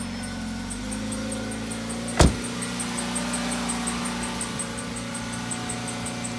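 Ford Fusion engine idling just after a start, with a fast high-pitched chirp repeating about five times a second from the serpentine-belt accessory drive, the sign of a dried-out pulley bearing. A single sharp knock about two seconds in.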